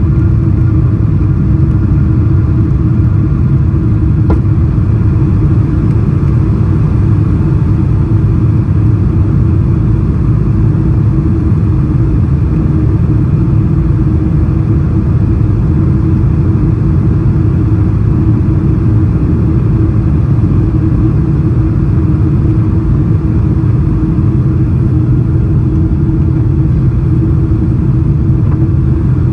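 Boeing 777-300ER cabin noise during the climb after takeoff: the steady low rumble of its GE90 engines and rushing air, with a steady hum, heard inside the cabin over the wing.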